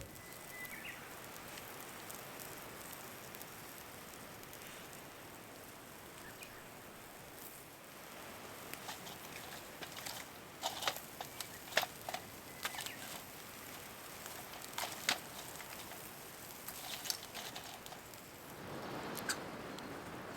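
Wood campfire crackling: a soft steady hiss with scattered sharp pops and snaps, most of them in the middle part.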